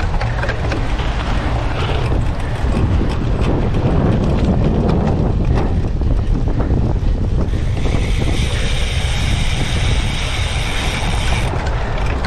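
Wind buffeting the microphone over the steady rumble of a cyclocross bike racing across the course. A higher hiss comes in for a few seconds near the end.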